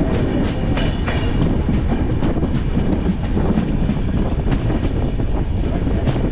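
Passenger train running along the track, a steady rumble with scattered clicks of the wheels over the rails.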